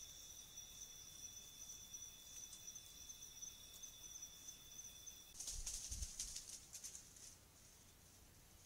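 A faint steady high-pitched whine in two tones, which stops abruptly about five seconds in. It gives way to a louder burst of crackling rustle in dry leaf litter with a soft thump, lasting about a second and a half.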